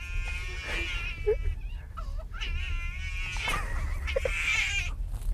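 A man's high-pitched, squealing laughter in short fits, cat-like in pitch, over the steady low rumble of a train carriage.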